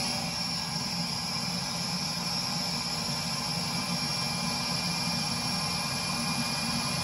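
Burnham Alpine gas boiler's combustion blower running steadily at purge speed, a constant whoosh with a faint high whine, as the control drives a purge cycle.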